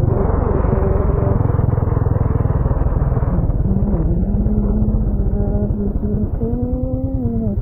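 Motorcycle engine running steadily under way, its low firing pulses heard close from the bike. The engine note dips briefly partway through and falls near the end as the throttle eases.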